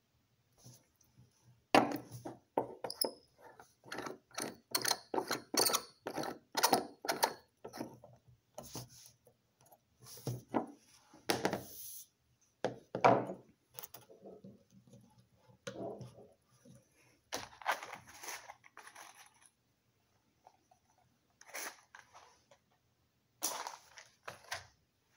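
Hand-held flint striker squeezed over and over, a run of short metallic scrapes about two a second, followed by scattered clanks and scrapes of lab equipment being handled.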